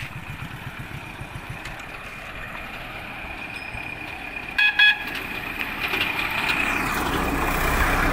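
Road noise from a moving motorcycle, with a vehicle horn giving two short toots about four and a half seconds in. The traffic noise grows louder near the end as a truck comes closer.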